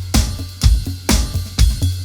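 House/electro drum groove on a Roland TD50X electronic kit playing Drum-Tec's sampled acoustic Pearl kit over a looped backing track. A kick lands about twice a second, four-on-the-floor, over a steady low bass line.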